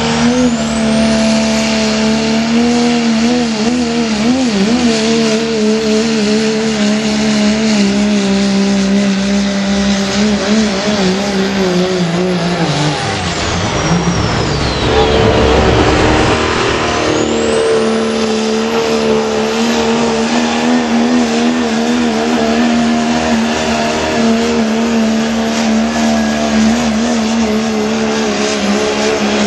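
Turbocharged diesel pickup engines running flat out under heavy load while pulling a sled, with a high turbo whistle over the engine note. About halfway through, the whistle and engine pitch fall away, then both climb back up as the next pull gets going.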